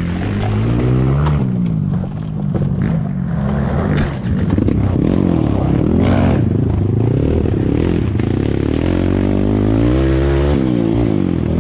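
Dirt bike engine revving up and down again and again as the throttle is worked over a rough trail, with a sharp knock about four seconds in.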